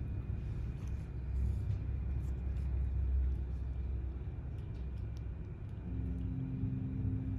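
Low, steady background rumble with a few faint light clicks; a low hum joins about six seconds in.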